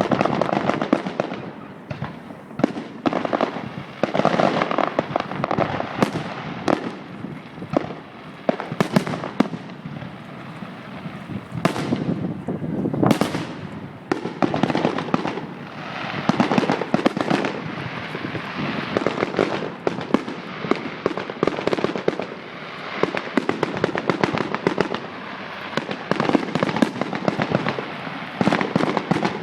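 Aerial fireworks going off in a dense stream: continuous crackling with frequent sharp bangs.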